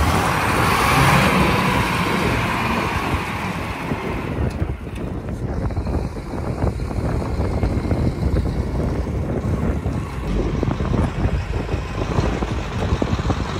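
Detroit diesel engine of a heavy forklift running steadily.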